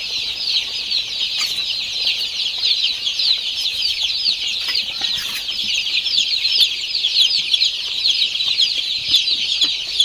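A crowded brood of newly hatched chicks and ducklings peeping nonstop: a dense chorus of short, high, falling peeps.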